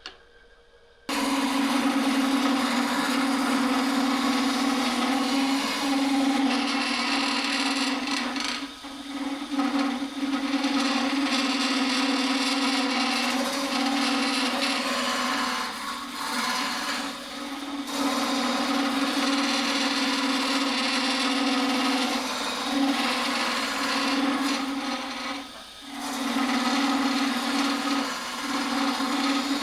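Wood lathe running with a chisel cutting into a spinning wood blank: a steady hum under a rough scraping hiss. It starts about a second in and dips briefly a few times as the tool comes off the wood.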